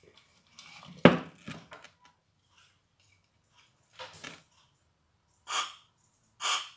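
A sharp knock from the vacuum's motor parts being handled, with a few small clicks, then two short hisses of a WD-40 aerosol spray about a second apart near the end: lubricant being sprayed into the motor's rusty bearing.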